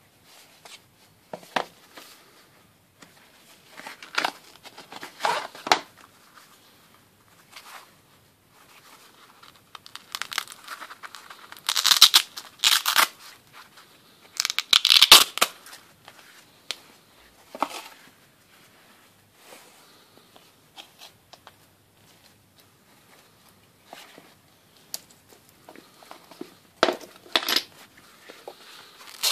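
Handling noises of a cardboard box and a fabric wristband, with a few loud rips of the wristband's hook-and-loop strap being pulled open, the loudest about halfway through.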